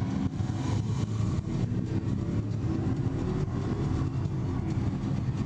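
Steady din of a crowded exhibition hall: many distant voices blending into a low, continuous rumble.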